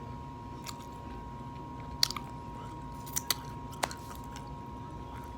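Close-miked chewing of a bacon, egg and cheese sandwich, with a few sharp wet mouth clicks, the loudest about two seconds in and a cluster around three to four seconds in.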